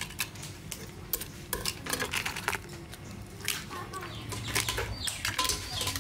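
Scattered clicks and clinks of kitchen utensils and dishes, with a hen clucking in short calls near the end.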